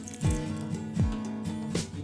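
Background music: guitar over a steady beat, with a deep drum hit about every three-quarters of a second.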